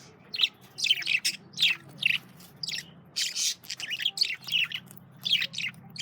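Male budgerigars chirping and warbling in quick, short calls, one after another in irregular bursts, over a faint low hum.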